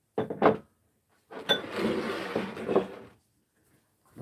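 Ceramic rice bowls and a serving plate being set down and slid across a wooden dining table: a short clatter, then a scrape of about two seconds.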